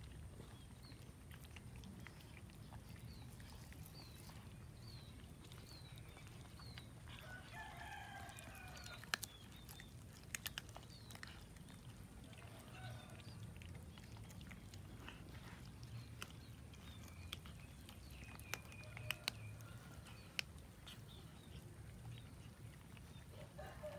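Several cats biting and chewing at a raw chicken carcass, with sharp clicks of teeth on meat and bone here and there over a low steady hum. Faint animal calls come in behind: a run of short high chirps in the first few seconds, and a longer pitched call about a third of the way in.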